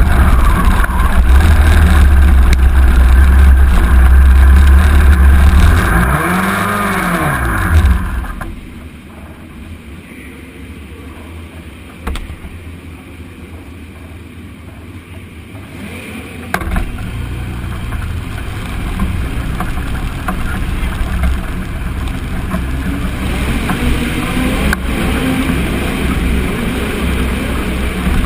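Midget race car engine heard onboard, running loud and steady, then revving up and back down about 7 seconds in before dropping away about 8 seconds in. After a quieter stretch, a steady low engine sound picks up again about 17 seconds in and keeps running.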